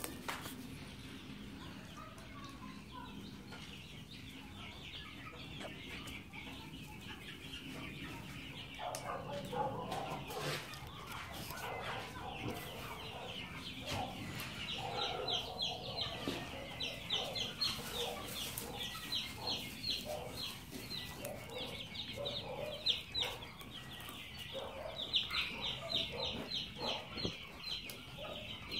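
Chickens clucking, joined about halfway through by runs of quick, high repeated calls.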